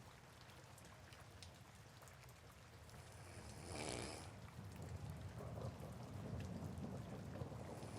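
Soft steady rain with a person snoring. About halfway through there is a noisy intake of breath, followed by a low, fluttering snore rumble in the second half.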